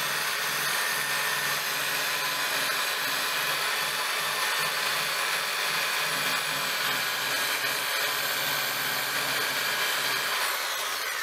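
Corded electric drill running steadily with a sisal buffing wheel charged with green polishing compound, buffing a brass height-adjuster knob. The motor's whine winds down near the end.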